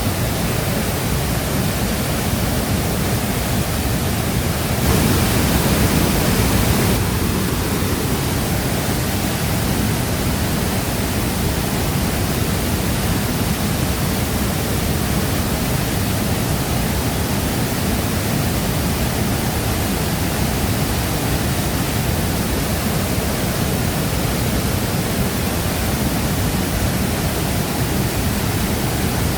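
Shifen Waterfall's water pouring and crashing in a steady, dense rush, briefly louder for about two seconds around five seconds in.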